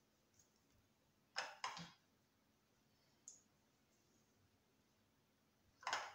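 A few short clicks and knocks over near silence, from sliced eggplant being laid in layers in a dish: two close together about a second and a half in, a faint tick a little later, and another knock near the end.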